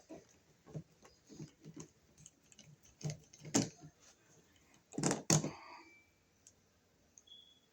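Scattered clicks and knocks of a wall receptacle and its wires being handled and pushed back into the electrical box, with a few louder knocks about three and a half and five seconds in.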